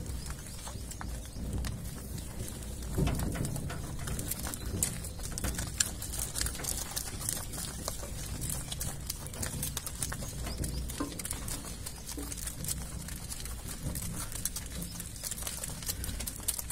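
Bullock cart rolling along a road: a steady low rumble from the wheels, with scattered knocks and clicks from the wooden cart and yoke.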